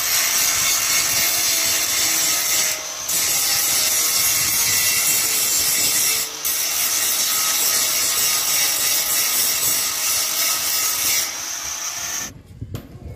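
Angle grinder grinding the mild-steel handrail, a loud steady abrasive screech with two brief dips where the disc eases off the metal. It lets up about eleven seconds in and stops about a second later.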